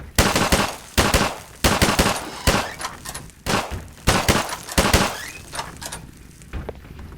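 A rapid, irregular series of loud sharp bangs, about ten in five seconds, dying away near the end.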